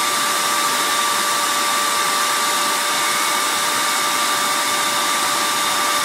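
RV gas furnace's squirrel-cage blower fan running steadily on 12-volt bench power: a smooth, even whir with a constant whine. It runs nice and smooth, a sign the fan was not damaged by the mouse jammed in it. It keeps running after being switched off while the control board holds it on for its timed shutdown.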